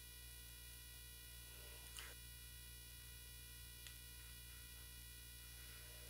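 Near silence: a faint steady hum, with two faint clicks about two seconds in and near four seconds.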